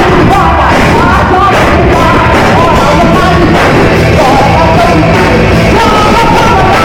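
Live rock band playing loudly with a singer's voice over it.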